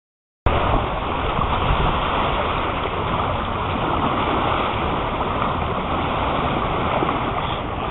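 Steady rushing of wind on the microphone mixed with water streaming along a sailboat's hull as it sails under way. It cuts in about half a second in after a brief dropout.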